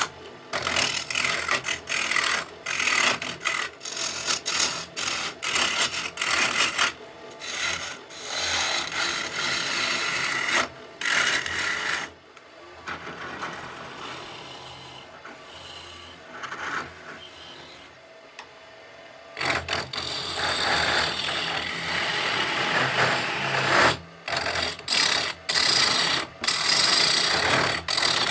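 A 3/8 bowl gouge cutting into a spinning locust-wood blank on a lathe, hollowing the mortar, with a rough scraping, rasping sound. The cuts come in repeated passes with short breaks. They go quieter for several seconds around the middle, then grow loud again.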